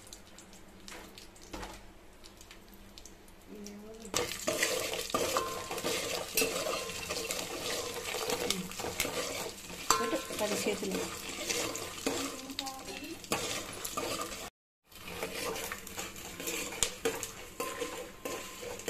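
Peanuts, chana dal and curry leaves sizzling in hot oil in an aluminium pot, while a spoon stirs them and clinks and scrapes against the metal. The sizzle starts about four seconds in and breaks off for a moment about three-quarters of the way through.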